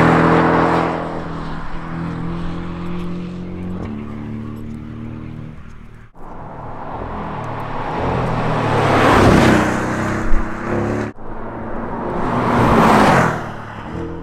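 Porsche 718 Cayman GTS's 2.5-litre turbocharged flat-four driving by on a race track in three separate passes. The first is loud as it pulls away and then fades, shifting pitch about four seconds in. The second swells to its loudest with a sharp crack about ten seconds in, and the third swells again; each pass breaks off abruptly.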